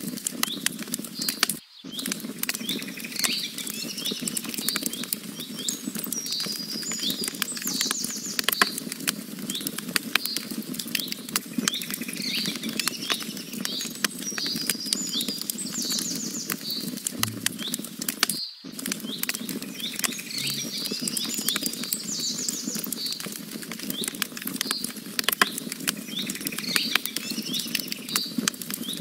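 A wood campfire crackles with frequent sharp pops over a steady low rush of flame, while small birds sing repeated chirping phrases. The sound cuts out for an instant twice, about two seconds in and again about two-thirds of the way through.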